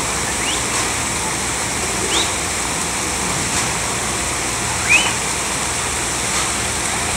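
Steady rush of falling and spraying water from water-park play fountains. Short, high rising squeals of children cut through it a few times, the loudest about five seconds in.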